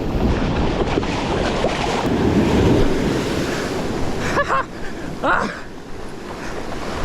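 Surf breaking and strong wind buffeting the microphone, heaviest in the first few seconds. Two brief distant cries come through about four and five seconds in.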